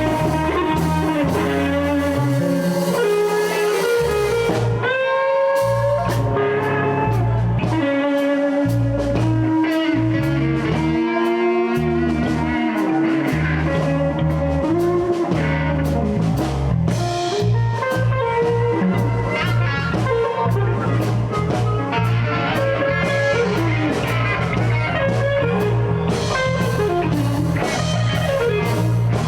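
Blues band playing an instrumental stretch, with guitar, bass and drum kit and bending, sliding lead lines.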